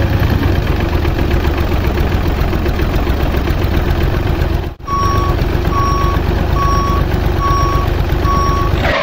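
Heavy vehicle engine running steadily. After a brief break about five seconds in, a reversing alarm beeps five times, evenly spaced, over the engine.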